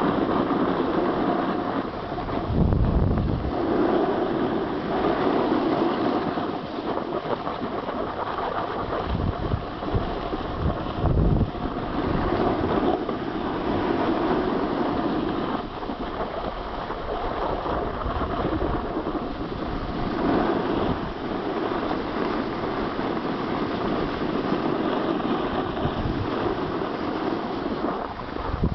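Steady scraping hiss of riding down a groomed snow slope, swelling and easing every few seconds, with wind buffeting the microphone in low thumps several times.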